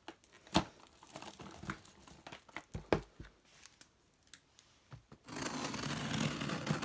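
A small cardboard delivery box and its packaging being opened by hand: light crinkling with a couple of knocks, then a continuous tearing rasp about five seconds in that lasts about a second and a half.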